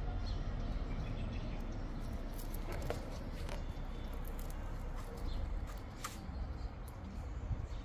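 Outdoor ambience: a steady low rumble, light scattered clicks and rustles from maple twigs being handled, and a few faint, brief bird chirps.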